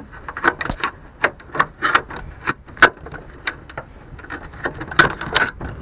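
Irregular clicks and snaps of the old plastic inside door handle of a 2006 Buick Rendezvous being pried and broken off its mount, with the sharpest cracks about three seconds in and again near the end.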